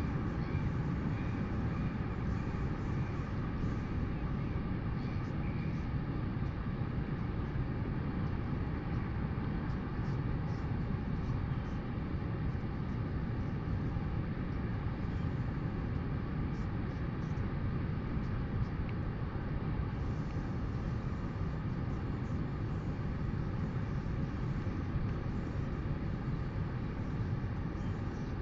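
Steady wind rumbling on an outdoor microphone, unbroken and strongest at the low end.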